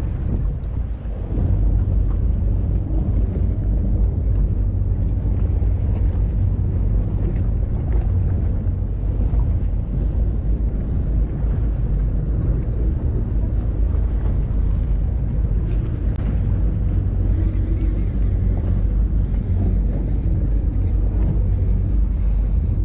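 Wind buffeting the microphone on a boat at sea, a steady low rumble.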